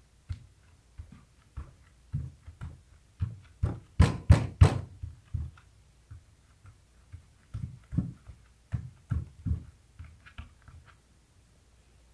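A hand patting and pressing clear grip tape down onto a wooden skateboard deck, giving irregular dull thumps about two a second, with a quick run of three harder ones about four seconds in.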